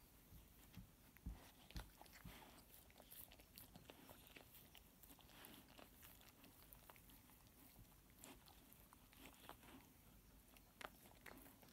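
Faint licking: a field spaniel's tongue and mouth making irregular small wet clicks on a hairless Sphynx cat's head.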